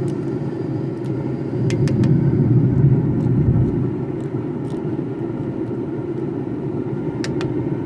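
A steady low rumble throughout, with a few light clicks of a silicone spatula scraping grated garlic off a ceramic garlic grater plate, around two seconds in and again near the end.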